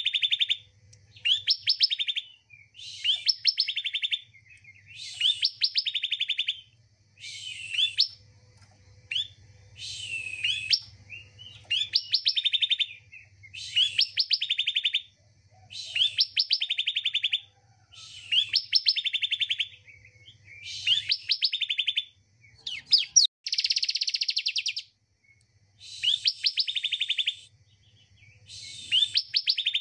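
Bar-winged prinia (ciblek) singing: short, rapid, trilled phrases repeated about every two seconds, with one longer, denser phrase about three quarters of the way through.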